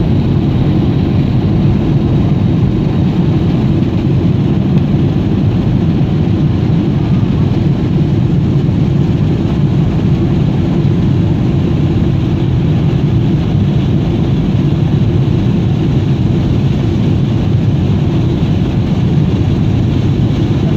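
Airliner cabin noise during landing: engine and airflow noise heard from a window seat inside the cabin, loud, steady and low-pitched, with no distinct thumps or changes.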